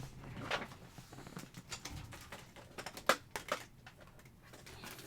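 A few sharp clicks and taps of a paper-crafting die and cutting plates being handled at a die cutting machine: one about half a second in and a quick cluster of three a little past the middle.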